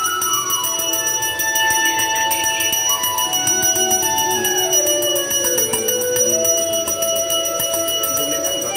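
Puja hand bell rung rapidly and continuously in Hindu worship, its strokes running together into a steady ringing, over a slow, sliding melody.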